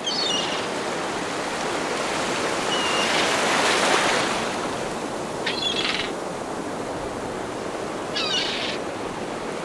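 Ocean surf washing steadily, swelling a little a few seconds in, with four short bird chirps spread through it.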